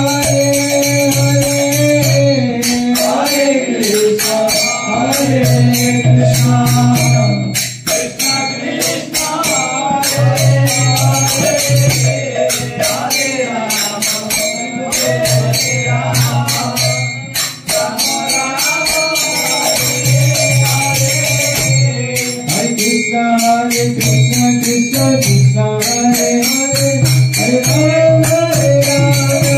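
Devotional kirtan chanting: a man leads the singing through a microphone, with a group and jingling hand percussion keeping time.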